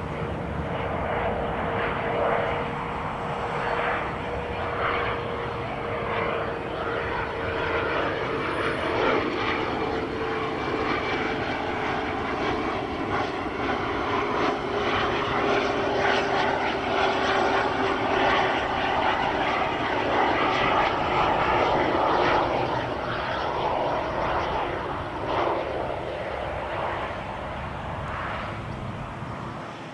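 Embraer Phenom 300 business jet on landing approach: the steady rush of its twin turbofan engines, with a whine that slowly falls in pitch. It grows loudest a little past the middle as the jet passes, then eases off toward the end as it reaches the runway.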